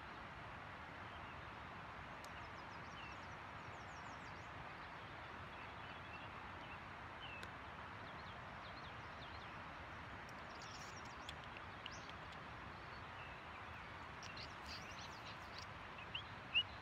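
Steady, faint rushing background noise, with high bird chirps scattered through it. The chirps come more often in the second half, and a few sharper, louder ones come near the end.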